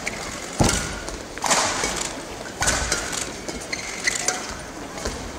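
Badminton rally: three sharp racket strikes on the shuttlecock about a second apart, each echoing through the hall, with faint shoe squeaks and footwork on the court afterwards.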